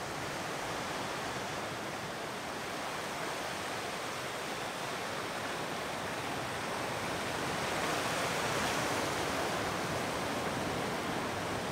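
Steady wash of sea surf breaking on a rocky shore, swelling a little about eight seconds in.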